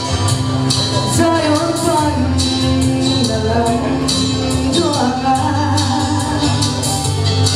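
A woman singing a solo song into a microphone, amplified through a PA, over instrumental accompaniment with steady bass notes and a regular cymbal beat.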